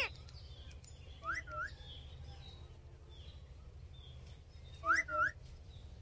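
Indian ringneck parakeets calling: short rising notes in pairs, one pair about a second in and a louder pair near the end.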